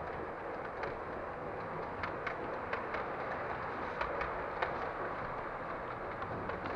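Large-scale model train running on the layout's track, its wheels giving short, irregular clicks over a steady background hum.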